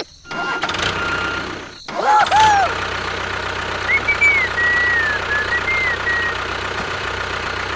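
An engine running steadily, with short rising-and-falling high-pitched sounds over it about two seconds in and again midway.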